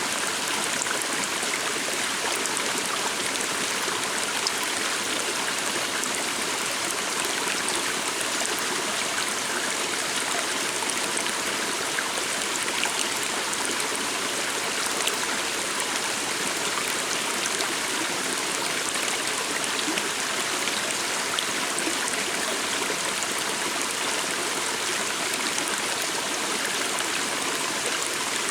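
Stream water running steadily over stones, a constant rushing and trickling.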